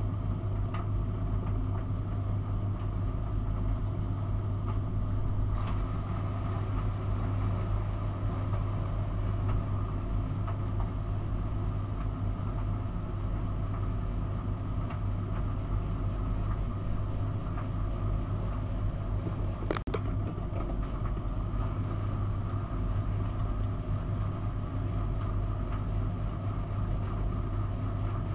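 Miele W 5873 WPS front-loading washing machine turning its laundry in a 40° cotton wash, over a steady low hum, with a Siemens iQ500 heat-pump tumble dryer running alongside. A single short click about twenty seconds in.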